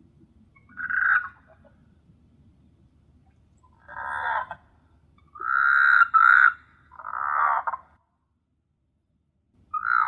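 Frogs calling at night: short, rough croaks about a second long, coming every one to two seconds, with two close together in the middle. The sound drops out completely for a moment shortly before the last croak.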